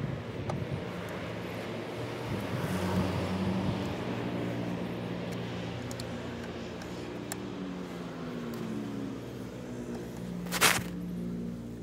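Hand tools working a tight bolt loose: a few faint clicks and one sharp clack near the end, over a steady low hum.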